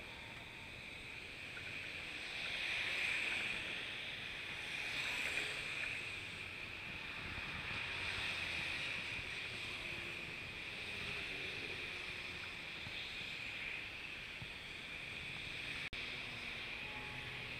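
Steady outdoor wash of road traffic and wind noise, with a few swells as vehicles pass.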